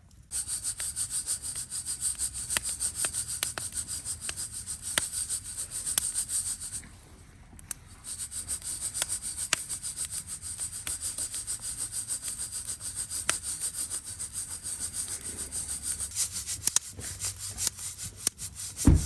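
Coffee beans rattling and rubbing inside a hand-held mesh roaster shaken back and forth in quick regular strokes, with a break of about a second partway through and scattered sharp clicks.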